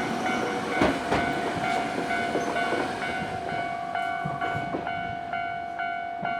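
Electronic warning bell of a Japanese level crossing ringing in quick repeated dings, about two or three a second, while a Nankai Kada Line train passes over the crossing. The train's wheels clack over the rail joints for the first few seconds, then die away, leaving the bell ringing on.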